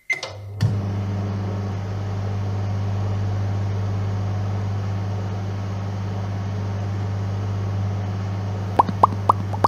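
Microwave oven starting up and running with a steady low hum. Three short high pings come near the end.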